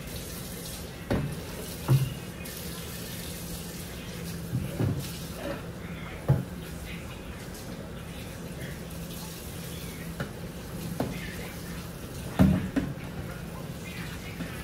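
Kitchen tap running into the sink while big cooking pots are washed by hand, with a few clunks of the pots against the sink, the loudest near the end.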